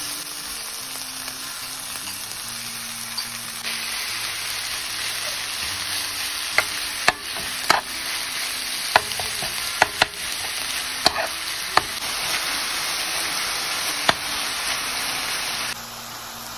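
Minced meat and sliced vegetables sizzling in a frying pan while being stirred with a spatula. The sizzle grows louder about four seconds in, and the spatula knocks against the pan about ten times through the middle. The sizzle cuts off suddenly about a second before the end.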